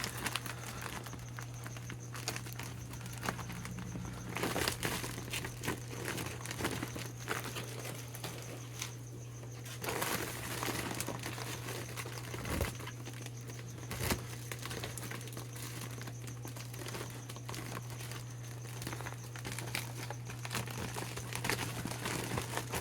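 Plastic shipping bags and deli cups crinkling and rustling in irregular bursts as the animals are unpacked, over a steady low hum.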